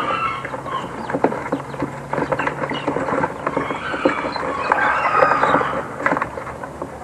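Young game chickens clucking and squawking as one is caught by hand from a wire cage, with knocks and rattles from the cage throughout.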